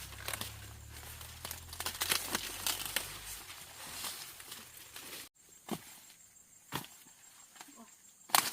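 Repeated sharp snaps and rustling as ears of corn are broken off dry stalks. After an abrupt break about five seconds in, there are a few single loud snaps about a second apart.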